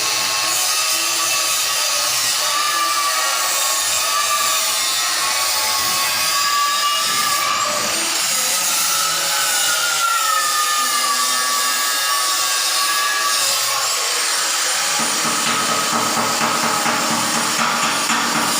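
A power tool running continuously, its high whine rising and falling as the load changes.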